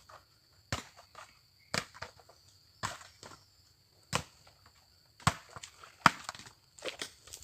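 A series of sharp knocks and scrapes, roughly one a second, each short, with quiet between them.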